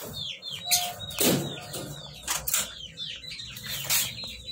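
Cage birds in an aviary chirping, many quick falling chirps overlapping one another, with a couple of louder rustling bursts about a second and two and a half seconds in.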